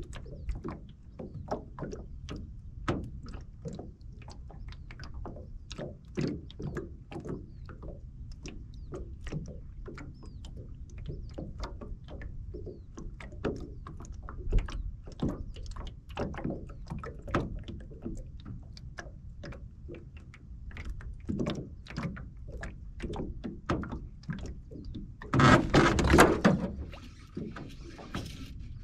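Irregular light knocks and taps on an aluminum boat hull over a low rumble. Near the end, a loud rough clatter of about two seconds as the hook is set on a fish, followed by a steady hiss.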